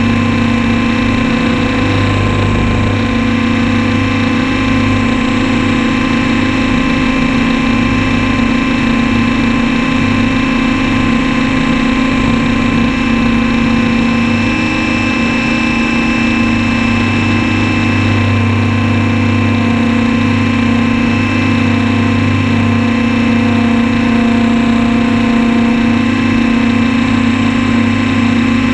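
Radio-controlled copter's motor and rotor running steadily, heard from a camera mounted on the aircraft itself, so the motor fills the sound.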